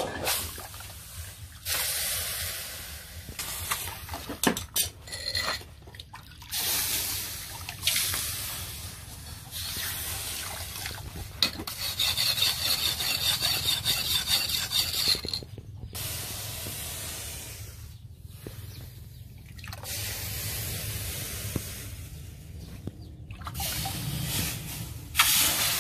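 Steel axe blade rubbed back and forth on a wet sharpening stone: gritty scraping with water splashing, in runs of one to three seconds with short pauses between.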